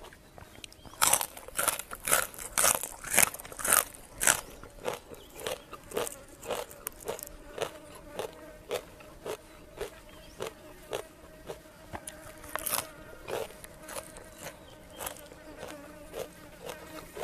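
Close-up crunching and chewing of raw green vegetables: a run of loud, crisp bites in the first few seconds, then steady rhythmic chewing. A fly buzzes close by underneath.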